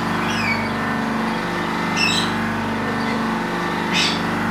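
Electric buffing machine with a cotton buff wheel running steadily, a constant hum with many even tones. A few brief high chirps sound over it.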